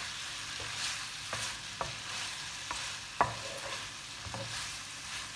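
Squid rings with onion and tomato sizzling in a stone-coated nonstick wok while a wooden spatula stirs them, with a steady frying hiss and several light taps and scrapes of the spatula against the pan, the sharpest about three seconds in.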